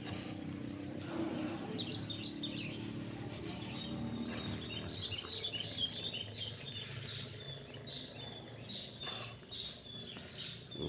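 Birds chirping, many short high calls repeating from about two seconds in, over a low steady hum that fades out around the middle.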